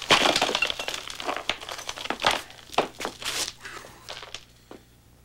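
A concrete block smashed by a sledgehammer on a man's chest: a sharp crash, then a few seconds of crunching and scraping as the broken concrete pieces fall and shift, tapering off near the end.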